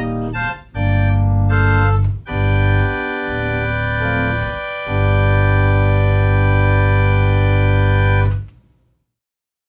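Two-manual electronic organ playing a series of sustained chords, closing on a long held chord that cuts off about eight and a half seconds in.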